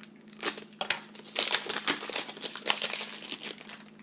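Plastic wrapper of a wrestling trading-card pack crinkling as it is handled and opened, a dense run of sharp crackles through the middle.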